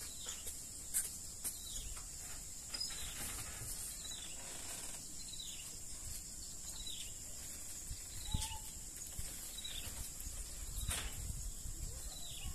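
Birds giving short downward-sliding calls over and over, about one every second or so, over a steady high insect drone, with a few faint knocks.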